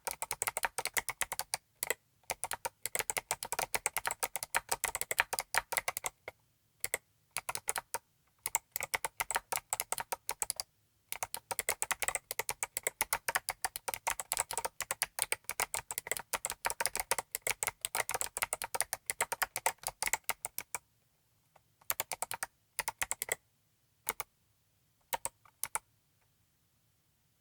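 Typing on a Saturn 60 mechanical keyboard with clicky Midnight Jade (recoloured Box Jade) switches, MT3 PBT keycaps, a steel plate and a foam-dampened case: fast runs of keystrokes broken by short pauses. About 21 seconds in it thins to a few scattered presses, which stop shortly before the end.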